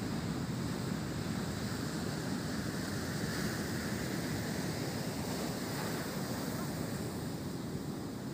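Heavy surf breaking and washing in steadily, with wind buffeting the microphone.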